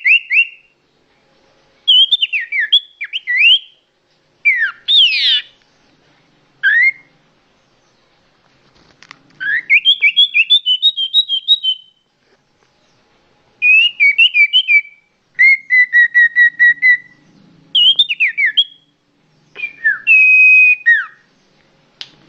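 Common iora (cipoh) calling, clear and loud: bouts of whistled notes and quick trills, some notes sliding up or down, with pauses of a second or two between phrases.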